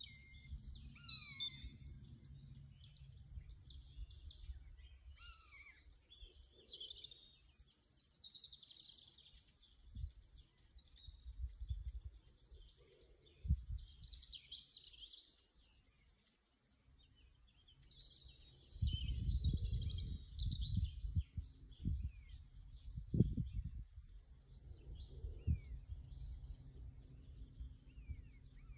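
Several songbirds singing and chirping, with a few falling whistled notes near the start. Low rumbling noise on the microphone comes and goes and is loudest in the second half.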